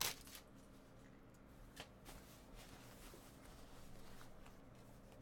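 Faint handling of trading cards: a short tap or click at the start, then a few soft ticks and slides of cards being sorted, over low room tone.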